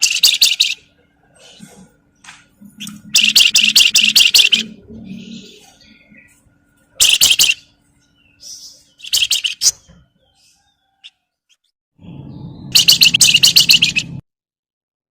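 Javan fulvetta (wergan Jawa, the keepers' 'flamboyan') giving rapid, rattling chatter calls in five short bursts separated by pauses. A low rumble sits under the last burst.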